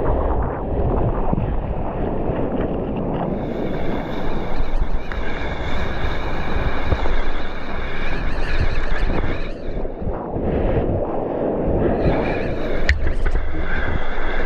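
Wind buffeting the microphone over water splashing and lapping against a stand-up paddleboard as it is paddled through chop.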